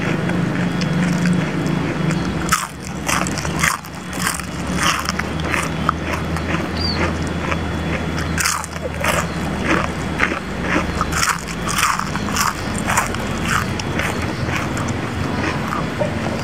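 Close-up chewing and crunching of crispy deep-fried leaves, a quick irregular run of crisp crunches that starts a couple of seconds in and goes on several times a second.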